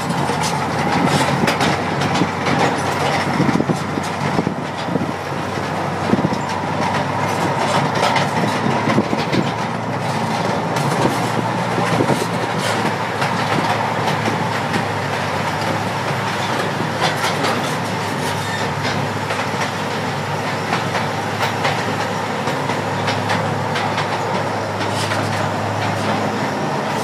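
Small ride-on amusement train rolling along its track, a steady running rumble with a continual clatter of wheel clicks over the rail joints.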